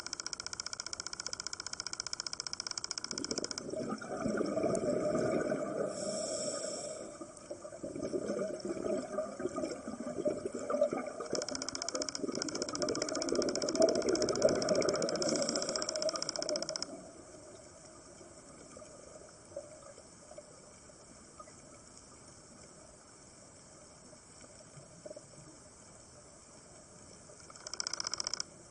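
Scuba diver breathing through a regulator underwater: hissing inhales alternating with long bubbling, crackling exhales for the first half. Then about ten seconds of much quieter faint reef crackle, and a short inhale hiss near the end.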